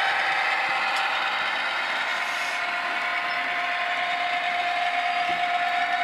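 Model Class 66 locomotive running steadily along model railway track, a constant motor whine with a light rattle of wheels on the rails, running smoothly over newly laid track and points.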